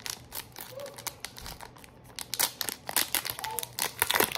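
Foil wrapper of a Shining Fates Pokémon booster pack being crinkled and torn open by hand: a quick, irregular run of crackles that grows louder and denser about halfway through.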